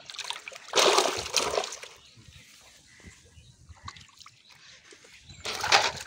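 A freshly caught carp thrashing in a metal bucket of water: a loud splash about a second in, and a shorter burst of splashing near the end.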